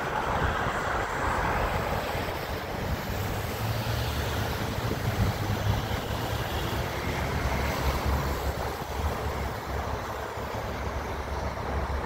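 Steady outdoor rush of wind and traffic, with low, uneven rumbles of wind buffeting the microphone.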